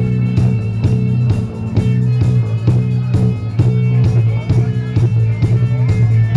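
Live rock band playing an instrumental passage through a PA: strummed electric guitars, bass guitar and drums keep a steady beat.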